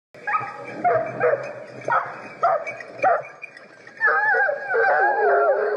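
A pack of hunting hounds yelping and baying as they run. There are separate yelps about twice a second at first, then from about four seconds in several dogs bay together without a break.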